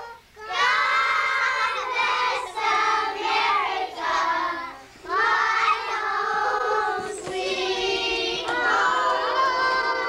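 Several young girls' high-pitched voices together, drawn out in long song-like phrases with a short break about halfway through.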